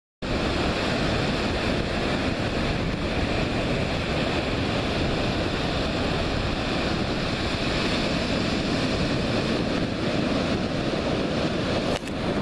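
Steady rushing noise of ocean surf mixed with wind buffeting the microphone, cutting in abruptly out of silence at the very start.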